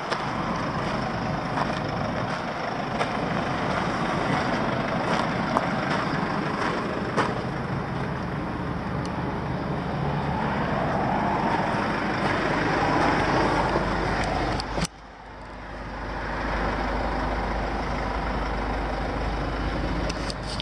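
Steady vehicle rumble mixed with wind noise. About fifteen seconds in there is a sharp click, after which the sound drops and builds back up.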